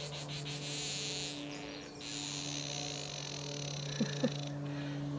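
Garden ambience: a high, pulsing insect chorus over a steady low hum, with two short calls, rising and falling in pitch, about four seconds in.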